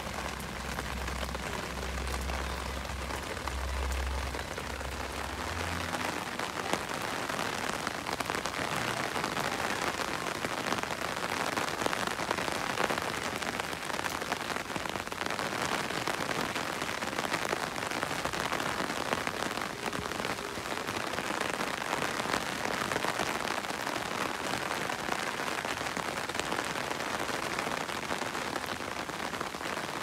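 Steady rain falling on a flooded concrete yard and garden plants: a dense, even hiss of drops splashing into standing water. A low rumble runs under it for the first few seconds.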